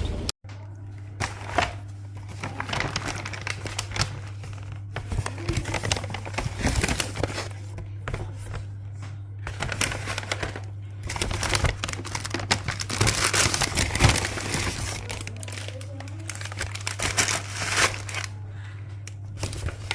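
Paper takeaway bags and food wrapping crinkling and rustling as they are handled and opened, over a steady low hum.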